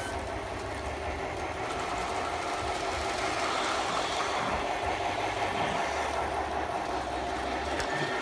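Several LGB large-scale model trains running together on their track: a steady mechanical hum and rattle from the locomotive motors and the wheels on the rails.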